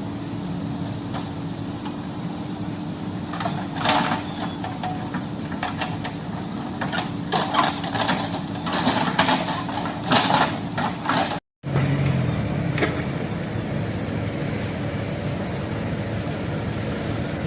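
Backhoe loader's diesel engine running steadily, with a cluster of irregular clanks and scrapes in the middle, then a brief dead gap about two-thirds of the way through.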